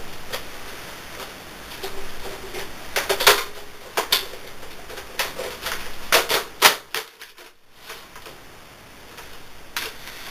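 Sharp plastic clicks and clatter from a clear Nerf toy blaster being picked up and handled. About a dozen separate clicks come irregularly, most thickly about 3 seconds in and again between 6 and 7 seconds.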